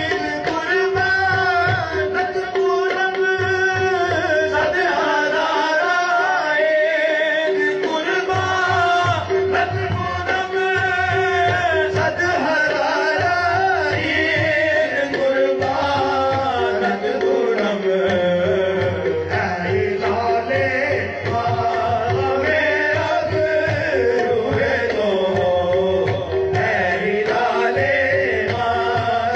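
Qawwali music: voices singing a melodic line over tabla, with a steady held note running underneath.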